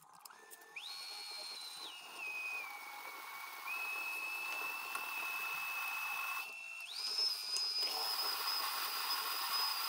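Freshly four-facet-ground 11.8 mm twist drill cutting without a pilot into 10 mm mild steel plate: a steady high-pitched whistle that jumps up and down in pitch a few times, breaks off briefly about six and a half seconds in, then comes back higher.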